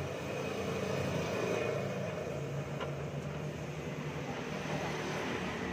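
Gas welding torch hissing steadily while welding a chrome exhaust muffler joint with filler rod, over a low steady hum.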